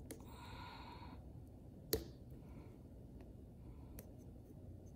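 Faint handling of wires and heat-shrink tubing by hand: a short rustle near the start and one sharp click about two seconds in, with a few faint ticks.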